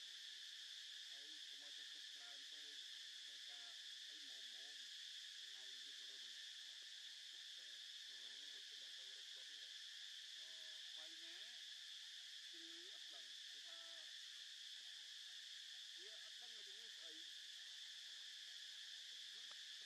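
Steady, high-pitched drone of a chorus of insects, even and unbroken throughout, with faint indistinct voice-like sounds low underneath.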